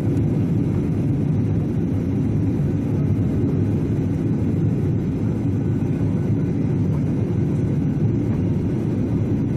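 Steady cabin noise inside a Boeing 737-800 on approach, heard from a window seat over the wing: its CFM56 turbofan engines and the rush of air past the fuselage, mostly low-pitched and even.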